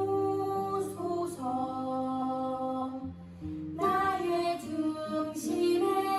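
A slow worship song: a sung melody of long held notes over instrumental backing, with a brief lull a little after the middle.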